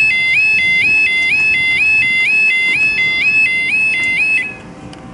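Level crossing yodalarm sounding: a loud two-tone warble stepping between a lower and a higher pitch about twice a second, warning that the barriers are closing for a train. It cuts off suddenly about four and a half seconds in.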